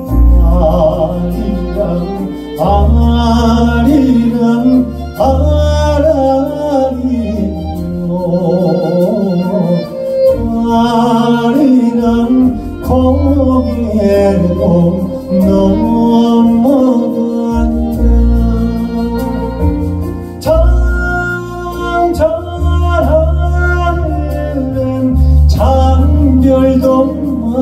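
Male sorikkun (Korean traditional folk singer) singing live into a microphone with a gliding, ornamented voice, accompanied by a double bass and band.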